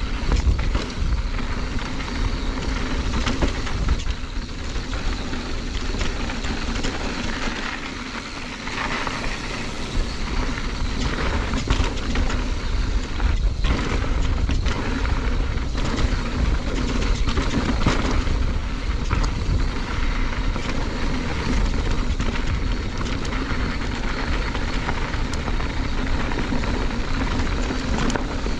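Mountain bike riding down a dry dirt and gravel singletrack: tyres rolling over loose rock, with scattered clicks and rattles from the bike over bumps, under a steady wind rumble on the camera's microphone.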